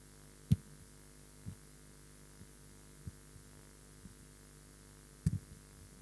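Steady mains hum from the hall's amplification system. A few dull thumps come through it: a loud one about half a second in, a second near the end, and smaller knocks in between.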